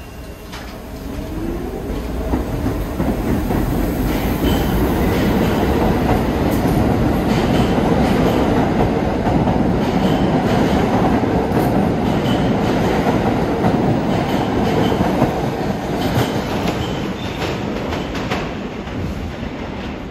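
New York City subway train moving along the platform, its wheels clattering over the rail joints, with a rising whine in the first couple of seconds; the rumble builds, holds, then eases off near the end.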